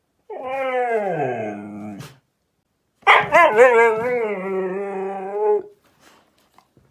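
A dog making two long drawn-out vocal calls. The first slides downward in pitch; the second, after a short pause, wavers up and down before stopping.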